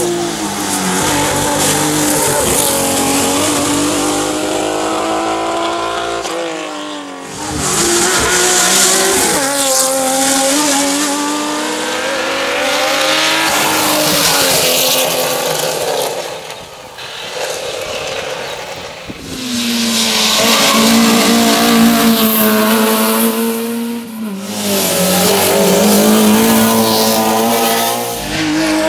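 Historic rally cars driven hard, one after another, their engines revving up and falling back in pitch. The sound is loud throughout, with short dips between cars every several seconds.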